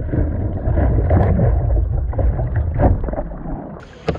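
Water splashing and sloshing around a kayak on the move, over a heavy low wind rumble on the microphone. Near the end the sound cuts abruptly to a quieter, clearer recording, with a sharp click.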